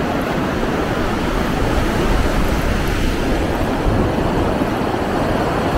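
Steady rush of a fast glacial river over boulders, mixed with wind buffeting the microphone.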